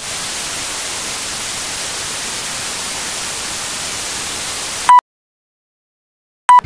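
Steady hiss of analog TV static as an intro sound effect. About five seconds in it cuts off with a short high beep, then after a silent gap a second short beep sounds near the end.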